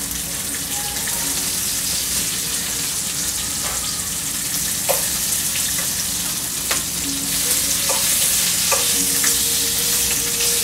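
Bacon strips sizzling in a frying pan, a steady hiss, with a few sharp clicks of a fork against the pan as the strips are turned.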